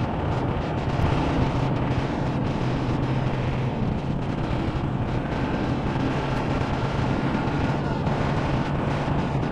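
Honda Monkey 125's single-cylinder engine running steadily as the motorcycle rides along, with wind noise on the microphone.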